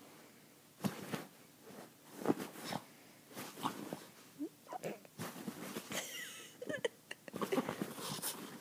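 A pug playing excitedly, making quick irregular bursts of noisy breathing and play sounds, with a brief high wavering sound about six seconds in.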